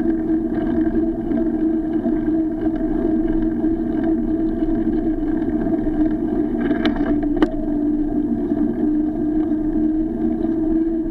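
Steady droning hum of riding a bicycle along an asphalt road, recorded on an SJ4000 action camera. Two sharp clicks come a little past the middle.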